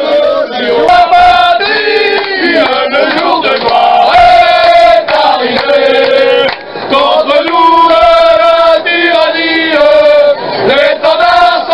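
A group of men singing a song together loudly, holding long notes between short breaks.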